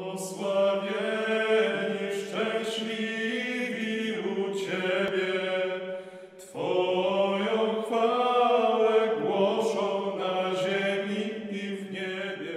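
Solo male voice singing a slow chant melody over a steady low drone, with a brief pause about six seconds in.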